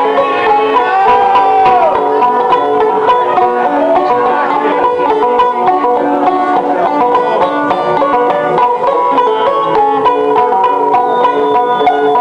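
Two banjos playing a lively country-style tune together, a steady run of quick plucked notes. A brief sliding tone rises and falls about a second in.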